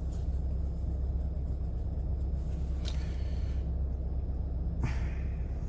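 Steady low rumble of a car idling, heard from inside the cabin, with two short faint rustles about three and five seconds in.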